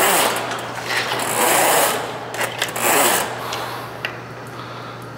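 Drain snake cable being pulled back out of a clogged drain line, rattling, whirring and scraping through the pipe in surges. The surges are loudest in the first three seconds and die down after that.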